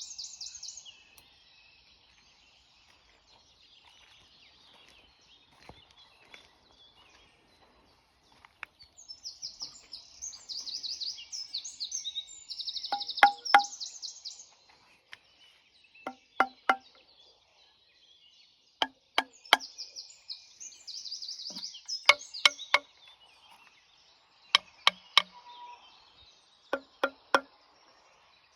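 Small birds singing in fast chirping trills, with sharp, ringing knocks in quick groups of three that repeat every two to three seconds from about halfway through.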